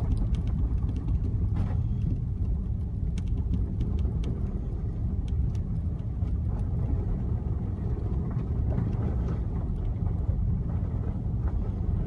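Steady low rumble of a car driving on snowy roads, heard from inside the cabin: engine and tyre noise with no distinct events.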